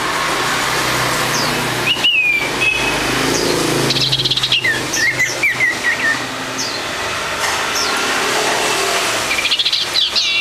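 A small yellow-green caged songbird singing: scattered short chirps and whistled notes, some sliding down in pitch, with a quick run of chirps in the middle and another burst near the end.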